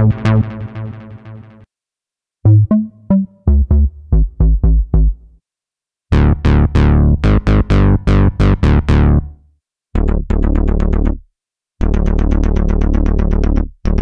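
Roland JUNO-60 software synthesizer playing short demos of bass and stab presets: rapid repeated notes with a strong low end. Each phrase stops abruptly, and after a brief silence the next preset begins.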